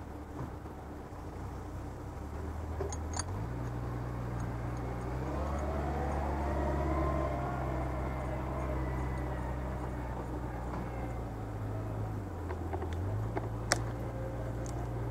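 Heavy machine engine running steadily, its speed stepping up twice in the first few seconds, dipping briefly and picking up again near the end, with a faint whine rising and falling in the middle. A sharp click sounds near the end.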